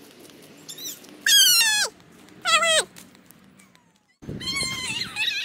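Young children shrieking with excitement while running a race. There are two loud, high-pitched squeals that fall in pitch, about a second and a half and two and a half seconds in, then more excited shrieks near the end.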